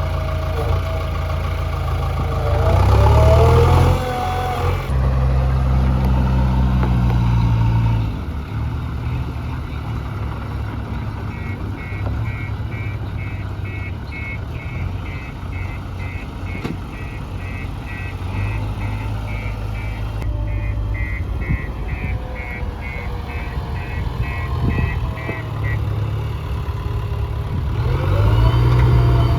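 Diesel engine of a JCB 3DX backhoe loader working, revving up under load twice and otherwise running steadily. In the middle stretch a reversing alarm beeps about twice a second.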